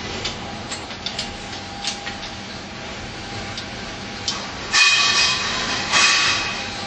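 Light metal clicks and scrapes as a bolt and nut are fitted at a corner joint of painted metal frame strips, with two louder metallic rasps about five and six seconds in.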